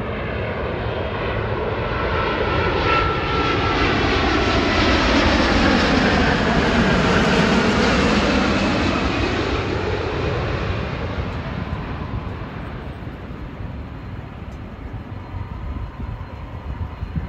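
Airbus A350-1000's Rolls-Royce Trent XWB engines on final approach as the airliner passes low overhead. The jet noise swells to its loudest about six to eight seconds in, with a sweeping, phasing sound as it passes, then fades away.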